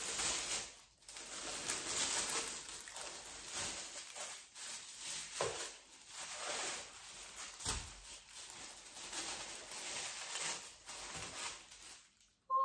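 Tissue paper and wrapping rustling and crinkling in irregular bursts as a shoe box is unpacked, with one soft thump about eight seconds in.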